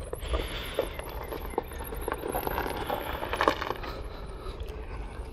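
Golf cart pulling away over grass and gravel, with scattered clicks and rattles from the loaded cart, a cluster of them about three and a half seconds in.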